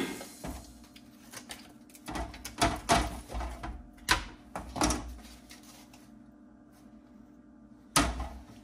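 Cut black plastic grille trim pieces being handled and set down on a workbench board: a scatter of separate clacks and knocks through the first five seconds, then one more near the end.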